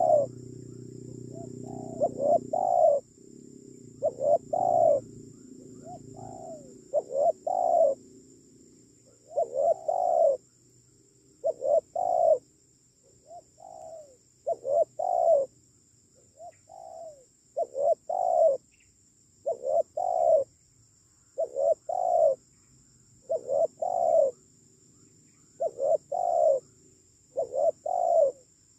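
Spotted dove cooing: a short phrase of two or three notes, repeated about every two seconds. A low hum sits under it and fades out about ten seconds in, over a steady high hiss.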